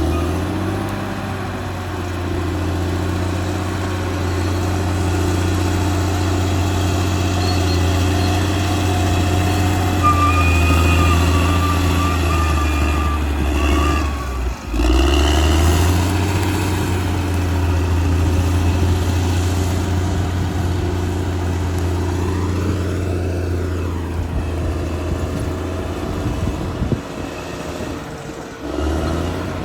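Caterpillar D6R XL bulldozer's diesel engine running steadily under load, a deep drone with a higher whine rising and falling now and then. The sound drops out briefly about halfway through.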